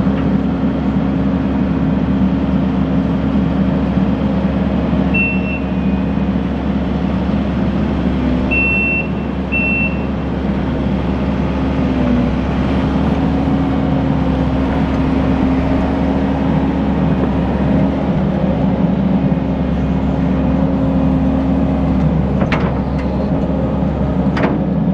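Kubota SVL75 compact track loader's diesel engine running steadily under load, with three short high beeps in the middle and two sharp metallic knocks near the end.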